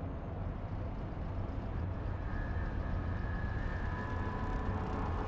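Low, steady city traffic rumble that slowly grows louder. A faint high steady tone comes in about two seconds in, and a lower one about four seconds in.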